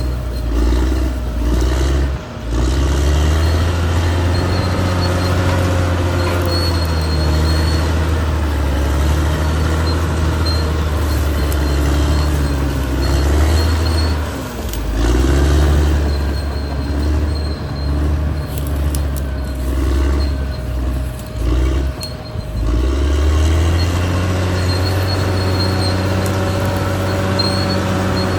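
Caterpillar D6R XL bulldozer's diesel engine running under load, its note dipping and picking up again several times as the machine works, with a few metallic knocks about two-thirds of the way through.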